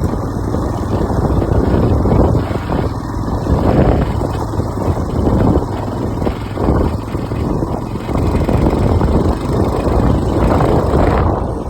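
A vehicle driving over a rough off-road track: a loud, uneven rumble that swells and dips.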